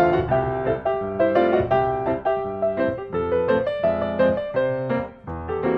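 Background piano music: a steady run of melody notes over chords.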